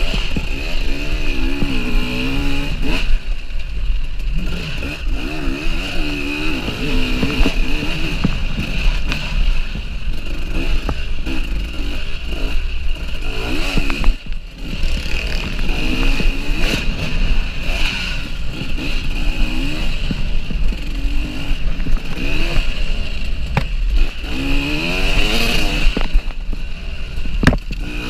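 KTM EXC 300 two-stroke enduro engine, heard from on board, revving up and down again and again as the bike is ridden hard over a dirt track. The throttle is briefly closed about halfway through.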